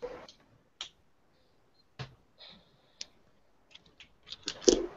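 Computer mouse clicking, heard through a video-call microphone: a few single clicks about a second apart, then a quicker, louder run of clicks and taps near the end.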